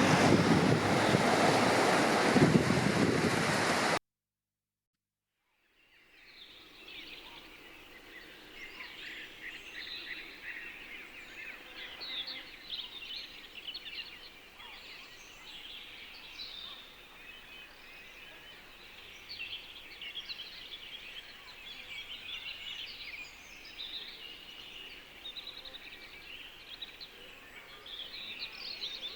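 Ocean surf and wind noise, cut off suddenly about four seconds in. After two seconds of silence, a dense chorus of small birds chirping fades in over a faint steady background hiss.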